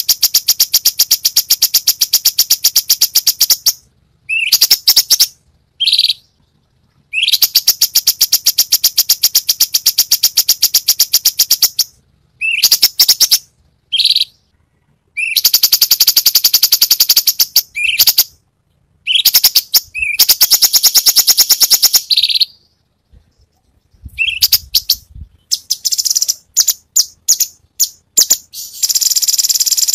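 Cucak cungkok songbird singing loud rapid strings of repeated high notes, each run lasting a few seconds, broken by short pauses and brief rising calls: the fast 'tembakan' phrases prized in bird-song training recordings.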